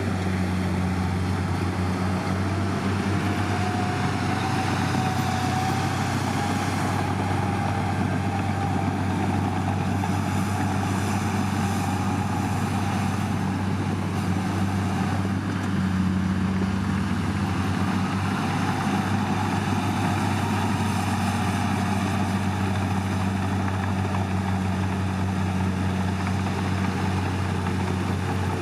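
Heavy diesel engine of earthmoving machinery running steadily with a low, even drone, and a faint higher whine that slowly rises and falls back.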